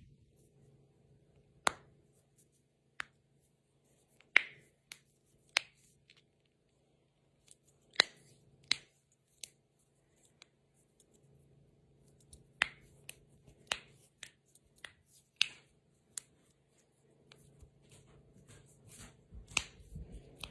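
Knuckles and finger joints of a person with Ehlers-Danlos syndrome cracking: sharp single pops at irregular intervals, well over a dozen in all, some coming in quick runs of two or three.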